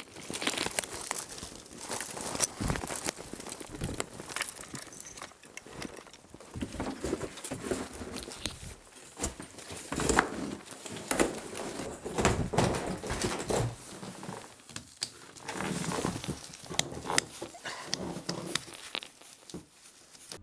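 Irregular crunching footsteps on snowshoes in snow, then steps, scuffs and knocks on a debris-strewn wooden floor. Near the end come the clicks and rattles of plastic snowshoes and their bindings being handled as they are unstrapped.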